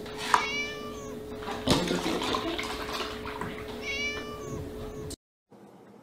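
A cat meowing twice, two short high calls about four seconds apart, over a steady low hum. The sound cuts off abruptly near the end.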